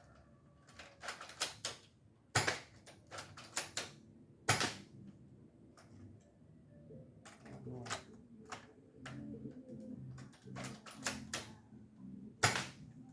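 Airsoft gun fired three times, with sharp cracks about two and a half seconds in, at four and a half seconds, and near the end. These are the last three rounds in the magazine. Lighter clicks of the gun being handled and cycled fall between the shots.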